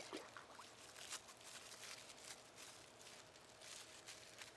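Near silence, with faint rustling of a paper towel being crumpled and handled and a few light clicks.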